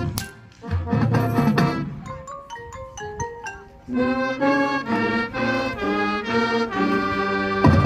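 Marching band show music: mallet percussion such as marimba and xylophone playing a line of separate struck notes, with longer held pitched notes joining about halfway through. Near the end the full band comes in loudly.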